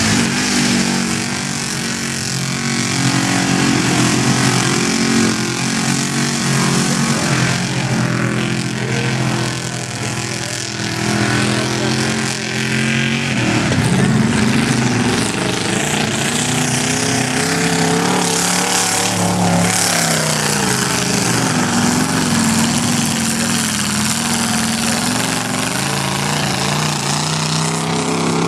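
Lifted Chevrolet S-10 Blazer on oversized mud tires driving through a mud bog, its engine revving hard and repeatedly, the pitch rising and falling as the tires spin in deep mud.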